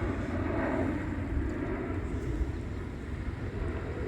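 Steady beach ambience: a low, even rumble of wind and surf, with no distinct events.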